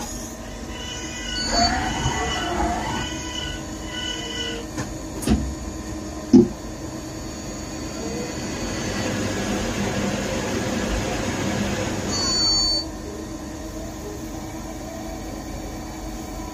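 Mazak Integrex 200-SY CNC mill-turn centre running a machining cycle: a steady spindle and axis whine, with two sharp knocks about five and six seconds in. From about eight seconds a hiss of cutting under coolant comes in, then cuts off suddenly about five seconds later.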